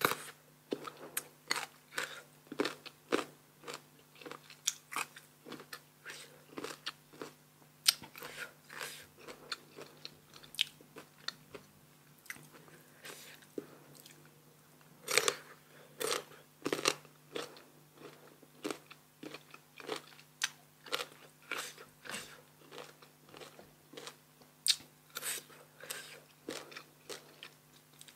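Close-up crunching and chewing of crisp, unripe sour mango (mamuang bao): repeated sharp, irregular crunchy bites, a few of them louder, over a faint steady low hum.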